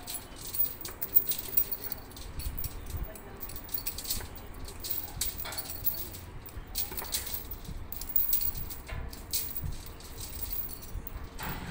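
Steel lifting chains clinking and rattling against each other and against the bundled steel rebar as they are hooked up, in irregular sharp clinks over a low rumble.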